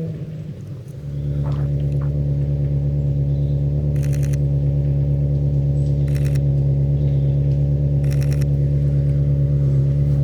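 Ferrari 360's V8 engine running at steady revs, a loud even drone that holds one pitch. It comes in about a second in, after a brief lull.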